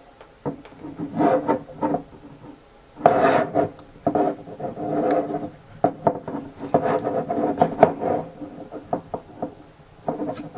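Small screwdriver scraping and prying at a plastic housing part of a Hohem XG1 gimbal's bracket, plastic rubbing and scraping in irregular strokes with small clicks. The part is a snug fit held by snap tabs, not glue.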